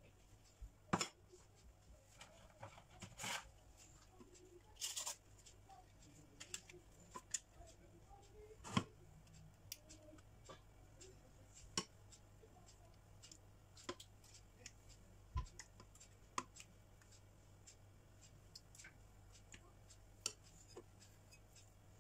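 Faint, scattered clicks and taps of a lasagna being layered by hand in a glass baking dish, as dry lasagna sheets are set down and creamy spinach sauce is spooned over them. Two brief scraping sounds come around three and five seconds in.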